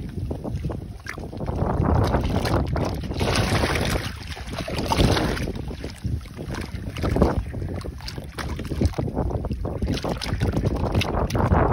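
Wind buffeting the microphone in irregular gusts over water washing in and out of a crack between seawall blocks.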